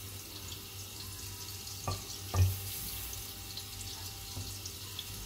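Butter melting in a stainless steel pan with a soft, steady sizzle, stirred with a wooden spatula that knocks against the pan twice about two seconds in.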